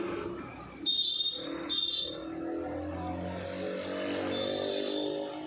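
A motor vehicle running by, a steady engine sound from about halfway in, after two short, sharp high-pitched noises about one and two seconds in.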